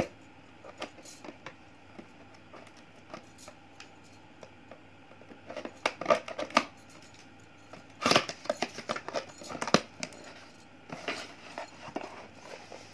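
Packaging and parts of a boxed desk lamp being handled while it is unpacked: scattered clicks, rustles and small knocks in short bursts, the busiest about eight to ten seconds in.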